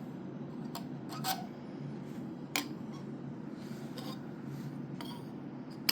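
Small plastic diorama pieces being handled and set in place: a few light clicks and knocks with some rubbing, over a steady low background hum.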